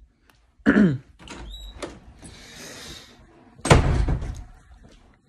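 Handling noise from a handheld phone being moved about: a short sound falling in pitch about a second in, scattered clicks, a rustle, then a loud thud about three-quarters of the way through.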